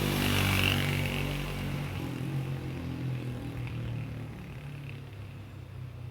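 A motor vehicle passing on the street, its engine loudest about a second in and then fading away.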